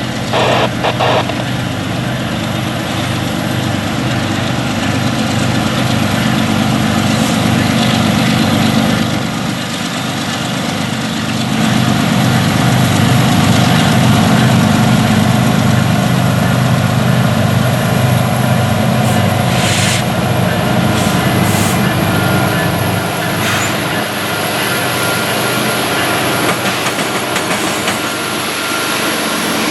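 Norfolk Southern diesel freight locomotives pulling a train away, their engines running with a steady low drone that grows louder in the middle and then eases off. A few sharp clicks from the wheels on the rails come about two-thirds of the way through.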